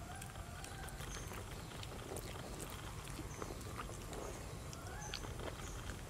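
Outdoor ambience: short high bird chirps repeating about once a second over a low background rumble, with faint lower calls and scattered light clicks.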